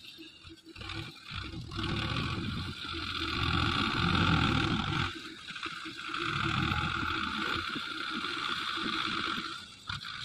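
Belarus 510 tractor's diesel engine working under load as its front shovel pushes and scoops sand. The sound swells and eases a couple of times.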